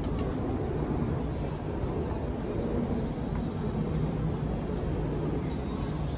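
City street ambience: a steady low rumble of traffic under a constant hiss, with a high chirp repeating about twice a second near the end.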